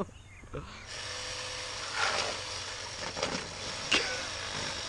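A small handheld power tool whirring against a shaken plastic soda bottle. It starts about a second in, runs steadily with a high whine, and has a few sharper surges as it works into the bottle to make a hole.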